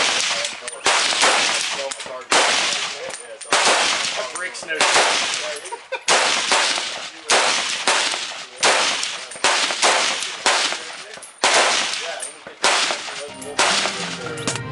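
FN SCAR 17S Heavy semi-automatic rifle in 7.62mm NATO fired in a steady string of single shots, about one a second, a dozen or so in all, each report ringing out and dying away before the next.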